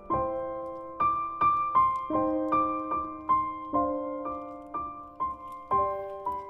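Background piano music: a gentle melody of struck notes and chords, a new one about every half second, each ringing and fading.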